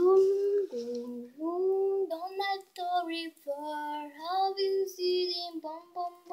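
A young girl singing a melody alone without accompaniment, holding notes of about half a second to a second and sliding between them.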